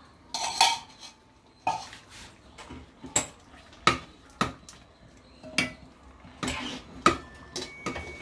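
A steel spoon and ladle clink against a stainless steel tumbler and kadai as ghee is spooned into thick sweet pongal and stirred in. The clinks are sharp and irregular, about a dozen of them.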